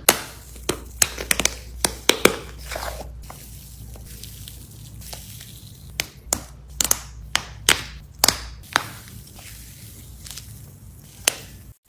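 Hands squeezing and poking slime, making sharp crackling pops and clicks in two busy clusters: one near the start and another a little past the middle.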